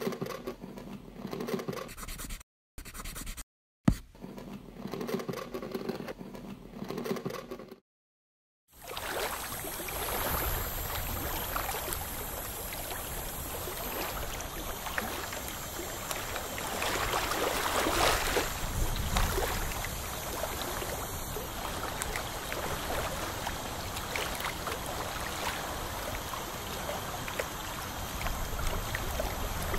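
Steel hand scaler scraping and picking hard black tartar off teeth, in short clips broken by brief gaps for the first eight seconds. From about nine seconds in, a steady watery hiss and gurgle runs under the scratchy scraping.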